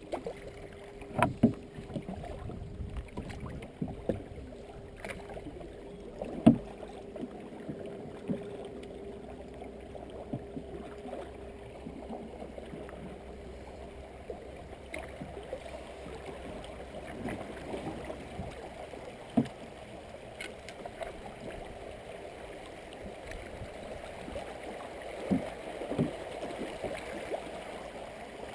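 Open canoe being paddled on a river: steady swish and gurgle of water around the paddle strokes and hull, with a few sharp knocks, the loudest about one and six seconds in.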